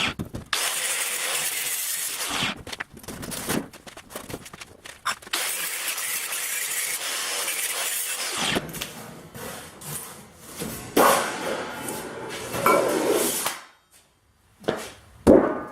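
Angle grinder with a cutting disc cutting through thin galvanised sheet steel: a loud, steady hiss with a few short breaks. It stops about eight seconds in and is followed by a few scattered knocks and clatters.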